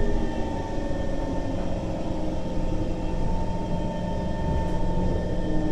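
Cabin noise inside a Kawasaki C151 MRT train carriage: a steady low rumble with several constant electrical humming tones from the train's equipment, one tone changing near the end.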